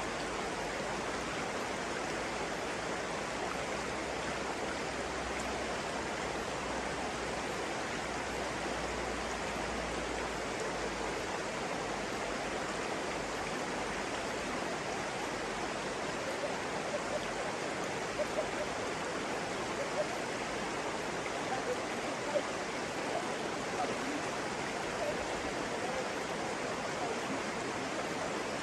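Stream water flowing steadily, with a few brief louder splashes or gurgles in the second half.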